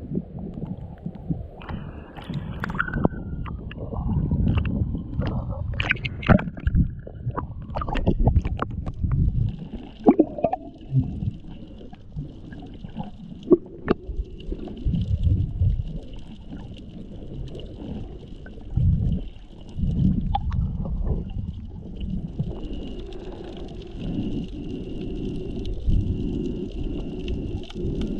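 Muffled water sounds picked up by an action camera in its waterproof housing while snorkeling: irregular sloshing and gurgling with low thuds and sharp clicks. From about ten seconds in, a faint steady high hum runs underneath.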